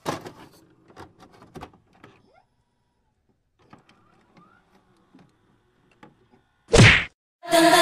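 Intro sound effects for a glitchy loading-screen animation: faint scattered clicks and ticks, then a loud short burst of noise, a glitch transition, about seven seconds in. Music starts just before the end.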